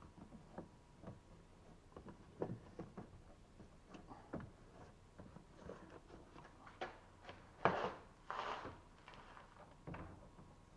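Hands working parts back into a car door: scattered light clicks and knocks, with two louder scraping, rustling strokes about eight seconds in.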